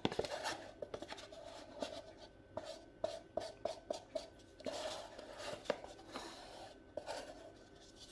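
Small handling noises of resin-crafting tools and containers: light scraping and scattered clicks, with a quick run of short taps about three a second around the middle.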